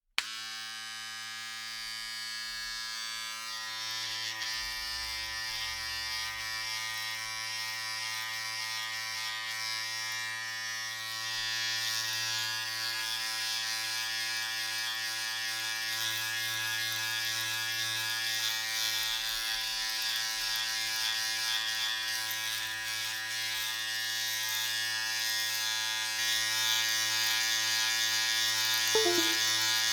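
Electric razor switching on with a click, then running with a steady buzz. A brighter rasping hiss builds up from about four seconds in and grows louder, the sound of the razor shaving.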